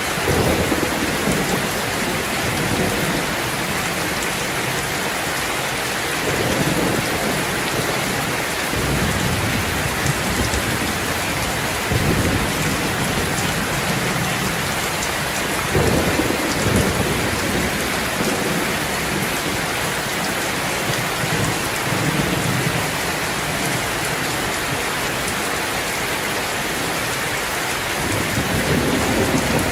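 Steady heavy rain falling, with low rumbles of thunder swelling and fading several times.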